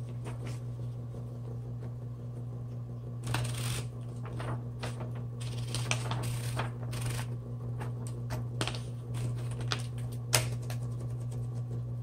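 A sheet of paper rustles as it is fed behind the platen of a Smith Corona Coronet Super 12 electric typewriter, with clicks from the platen knob being turned and a sharper click near the end. Under it runs the steady hum of the switched-on typewriter's motor.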